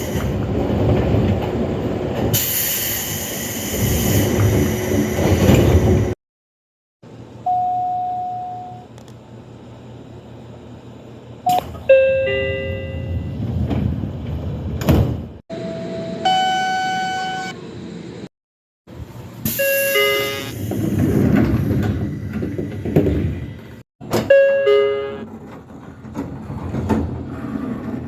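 Seibu Railway train door chimes, one recording after another: several short two-note falling chimes and some steady single-tone door signals, separated by cuts. Between them comes loud noise of doors sliding and trains in stations.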